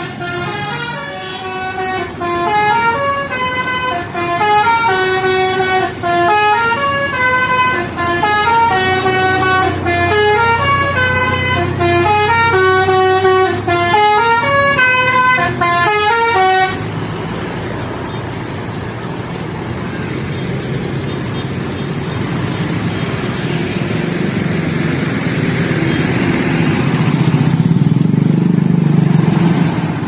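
A bus's 'telolet basuri' musical horn playing a quick tune of stepped notes, which cuts off suddenly a little past halfway. After it comes the steady noise of road traffic and running engines.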